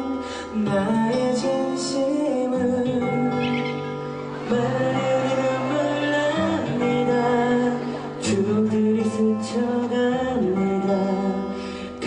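Music: a song with singing over a held, chord-like accompaniment.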